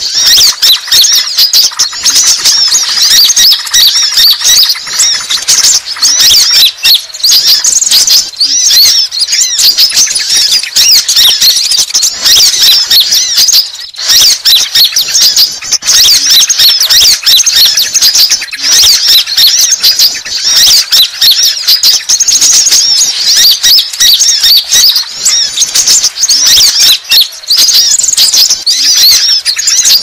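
Konin (kolibri ninja, Van Hasselt's sunbird) singing: a loud, rapid, high-pitched twittering of chirps and trills kept up almost without pause. It is a challenge song, the call used to lure rival sunbirds.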